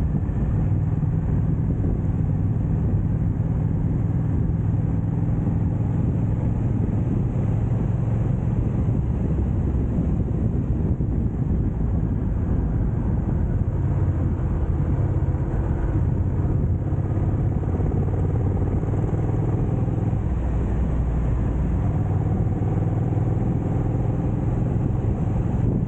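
Motorcycle engine running while riding, its note shifting up and down several times with throttle and gear changes, over rumbling wind and road noise.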